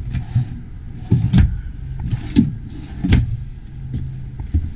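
A few dull knocks and thumps of a motorhome cabinet door and its contents being handled, over a steady low hum.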